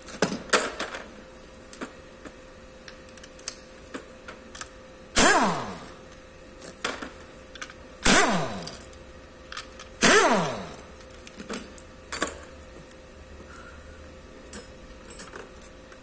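Metal hand tools and bolts clicking and clanking against a Kia Rio engine's cylinder head as its valve cover is unbolted and taken off. Three louder metallic clanks with a ringing tail come about five, eight and ten seconds in, among lighter clicks and rattles.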